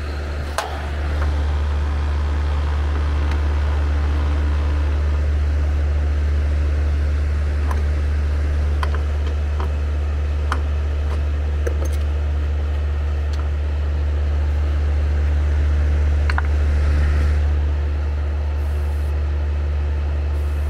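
A steady, loud low hum of running machinery sets in about a second in, with scattered light clicks and taps of hand tools working at a condenser's refrigerant line connections.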